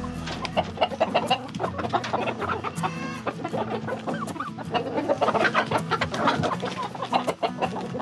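A flock of chickens clucking while pecking at a compressed seed block (a flock block), their beaks striking it in many quick, sharp ticks.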